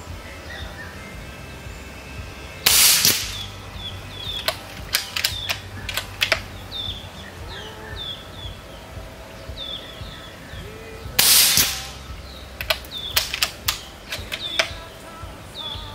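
Two shots from a suppressed Umarex Gauntlet II .30-calibre PCP air rifle, about eight and a half seconds apart. Each shot is followed by a quick run of sharp metallic clicks as the bolt is worked to chamber the next pellet.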